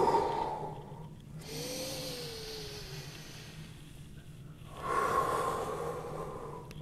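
A man breathing deeply and audibly through cat-cow spine stretches: a long breath out at the start, a quieter breath in, then another long breath out about five seconds in.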